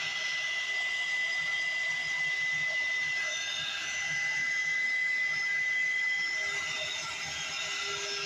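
Electric heat gun blowing steadily with an airy hiss and a thin, steady high whine, shrinking heat-shrink tubing over a crimped cable lug.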